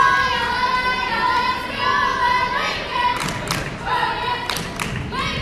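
High voices of a girls' volleyball team chanting a drawn-out cheer together, the held notes lasting about three seconds. Then come several sharp thumps or claps.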